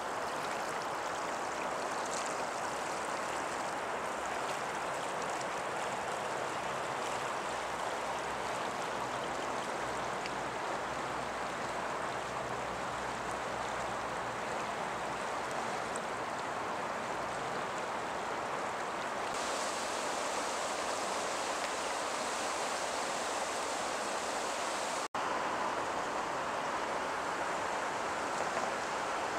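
Steady rush of the Grand River's water churning through shallow rapids. The upper hiss thins about two-thirds of the way through, and the sound cuts out for an instant near the end.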